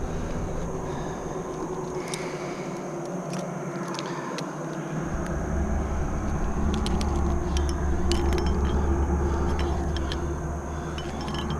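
Low rumble of wind buffeting the camera microphone, growing stronger about halfway through, with light metallic clinks of climbing gear as a camming device is placed in the crack.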